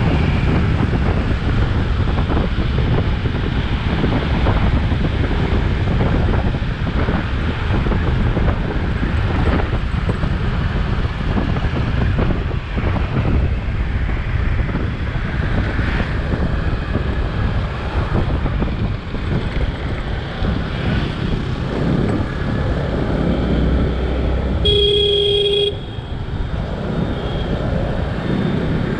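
Wind buffeting the microphone and traffic noise while riding a two-wheeler through city traffic. A vehicle horn sounds once near the end, a single steady-pitched honk lasting about a second.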